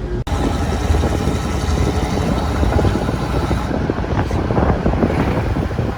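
Road traffic rumble with wind buffeting the microphone.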